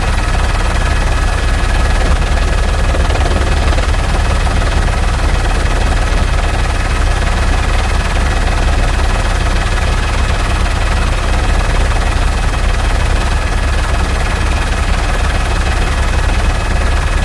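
Helicopter running steadily: a fast low beat of the rotor blades under a constant engine whine.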